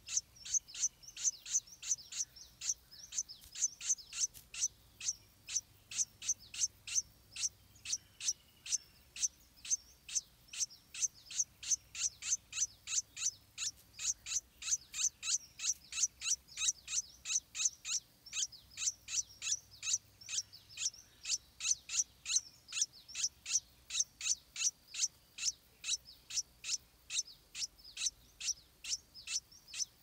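Stripe-throated bulbul nestling begging for food: a steady, unbroken string of short high-pitched calls, about two to three a second.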